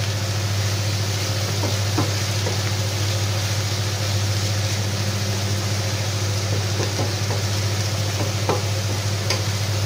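Spinach, parsley and garlic sizzling in a frying pan while a wooden spatula stirs them, with a few light scrapes and taps against the pan. Under the sizzle runs a steady low hum.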